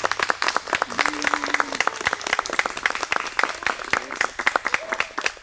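Guests applauding in quick, dense claps, with one voice giving a short held call about a second in.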